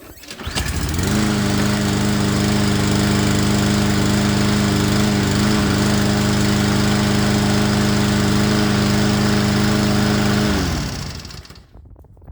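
Craftsman lawnmower's small single-cylinder engine starting up about half a second in and running at a steady speed. It shuts off and winds down near the end. It now starts and runs because a new carburetor jet lets the fuel through, where the old clogged one did not.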